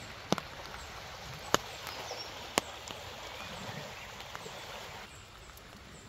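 Light rain falling on wet grass and bush, a steady soft hiss, with three sharp ticks about a second apart in the first three seconds.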